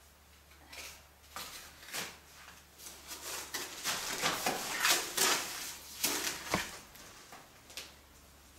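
Scraping and rubbing as wet, rehydrated clay is pressed by hand and smoothed with a trowel into a hole in an old wall. The sound is busiest in the middle, with a sharp knock about two-thirds of the way through.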